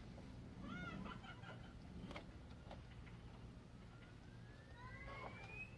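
Faint bird calls, short chirps about a second in, over a low steady hum, with a thin tone rising in pitch near the end.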